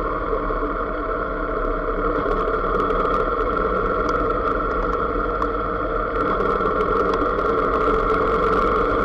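Motorcycle engine running as the bike rides along, with road and wind noise, getting a little louder after the first couple of seconds as it pulls away.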